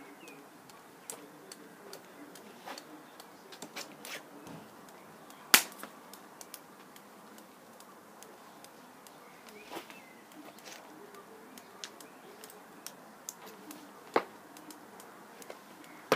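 Irregular sharp clicks and taps over a quiet background, with one much louder click about five and a half seconds in and another near fourteen seconds.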